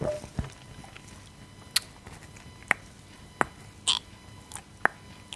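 Gum chewing close to the microphone: about half a dozen separate sharp, wet mouth clicks, with a soft thump just after the start.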